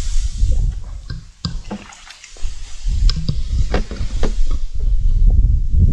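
Strong wind buffeting the microphone with a gusty low rumble, over a scattering of short wet clicks and slaps from handling a freshly landed crucian carp.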